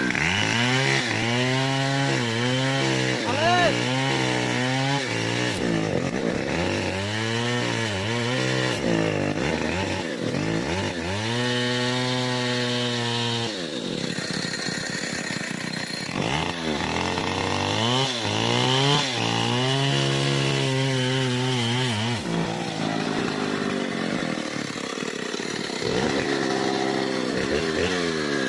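Stihl 070 two-stroke chainsaw cutting into a mahogany tree. The engine note rises and drops again and again, every few seconds, as the throttle is worked and the chain bites into the wood.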